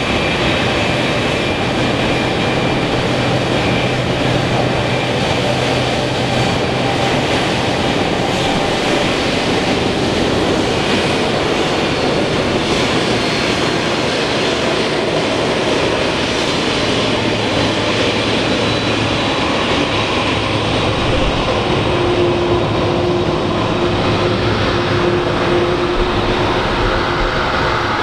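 Boeing 767 twin turbofan jet engines running at taxi power as the airliner taxis: a steady jet rumble and hiss at an even loudness, with a steady whine coming in about three quarters of the way through.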